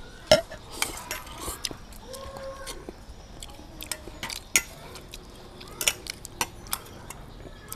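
Chopsticks clicking and clinking against stainless steel bowls while eating noodles: a string of short, sharp clicks at irregular intervals.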